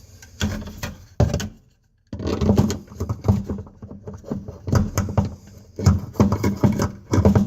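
Irregular knocks and clicks of a faucet and sink installer tool being fitted and shifted onto a faucet mounting nut under a sink, with a short quiet break about a second and a half in.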